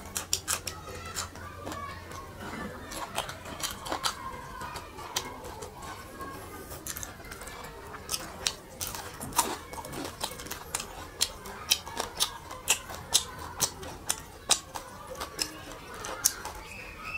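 Close-miked chewing of crunchy food, fried fish and green chilli: crisp crunching clicks, coming steadily at about two a second in the middle part.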